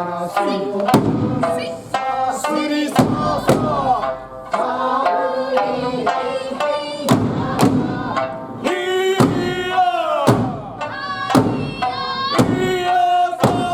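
Eisa performance: drum strikes at short intervals over an Okinawan folk song with singing.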